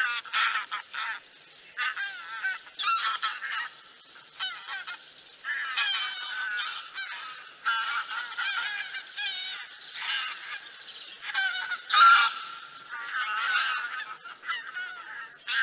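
A flock of wild geese, barnacle and greylag, calling: many short honks and yelps overlap in clusters, with brief lulls between them. The loudest cluster comes about twelve seconds in.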